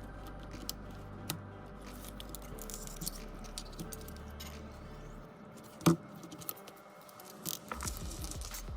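Scattered light clicks and taps of small tools and phone parts being handled, with one sharper knock about six seconds in, over a low steady hum.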